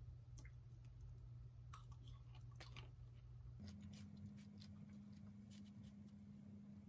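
Near silence: low room hum, joined by a steady low tone about halfway through, with scattered faint clicks of a metal fork against a plate as it cuts into a slice of crepe cake.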